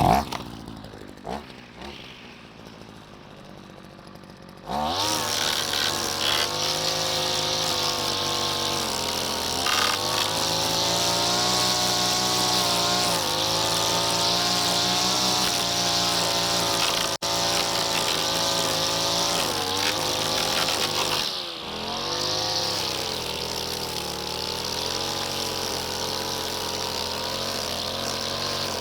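Brushcutter engine fitted with a new trimmer head starts about five seconds in and runs at speed, revving up and down. It dips briefly about 21 seconds in, then runs on. A sharp knock sounds at the very start.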